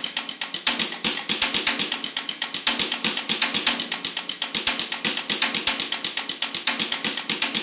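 Background music: a fast, even percussive tick pattern, about eight to ten hits a second, with little bass, as an intro before the full drums come in.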